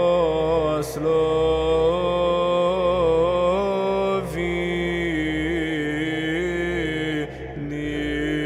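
Romanian Orthodox church chant: voices sing long held notes that glide between pitches, with short breaks about four and seven seconds in.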